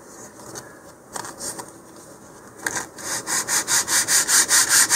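150-grit sandpaper rubbing by hand along the edges of a thin balsa fin, knocking down the corners to round them. A few scattered light strokes come first, then quick, even back-and-forth strokes resume about three seconds in, roughly five a second.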